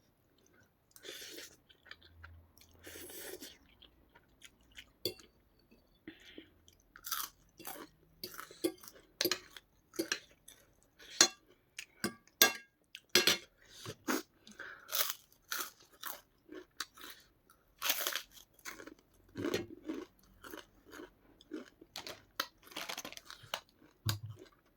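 A person biting into and chewing crisp white papad, a long irregular run of sharp crunches.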